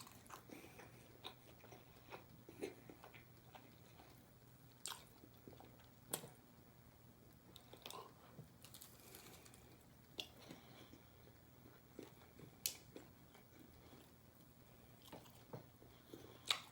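Quiet eating of fried chicken strips and fries: faint, scattered crunches and chewing, heard close up.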